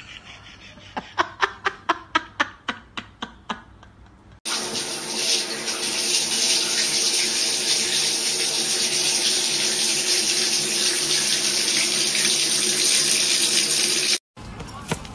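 A quick series of sharp taps or clicks, about four a second. Then, after a sudden cut, a loud steady rushing noise runs for about ten seconds and stops abruptly.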